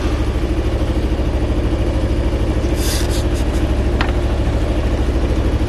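Sailboat's inboard engine running steadily under way, a low pulsing drone.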